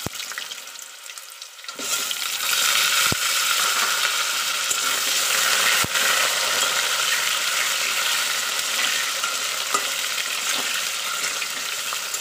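Cut potato pieces sizzling in hot oil in a metal kadai. The sizzle jumps up sharply about two seconds in, as the rest of the potatoes go into the oil. A few sharp clicks come from the metal spatula knocking the pan.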